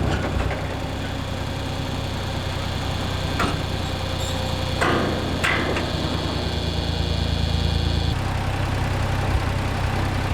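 Tractor engine idling steadily, with a few sharp clicks about three and a half and five seconds in; the engine's tone shifts slightly about eight seconds in.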